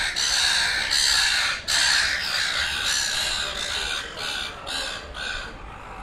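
Silver gulls squawking harshly in a squabble: loud, nearly unbroken calls for about four seconds, then a few shorter squawks about half a second apart that grow quieter.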